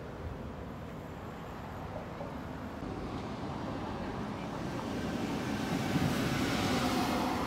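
Road traffic noise on a city street, swelling from about halfway through as a vehicle approaches and passes, loudest near the end.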